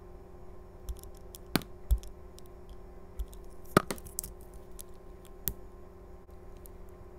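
Utility-knife blade shaving thin slices off a translucent pumpkin-shaped bar of soap: irregular crisp clicks and crackles, with a few louder snaps, over a steady low hum.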